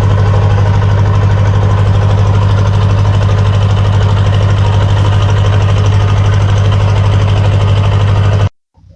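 A small river speedboat's engine running loud and steady under way, with a strong low hum. It cuts off abruptly near the end.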